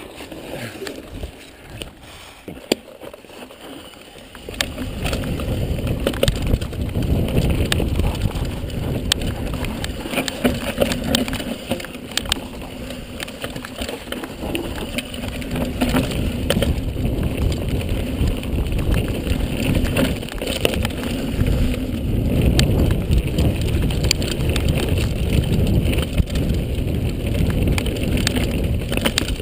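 Mountain bike rolling fast down a dirt singletrack, heard from a handlebar-mounted camera: a steady rumble of tyres on dirt with frequent knocks and rattles from the bike over bumps. It is quieter at first and gets much louder about four seconds in.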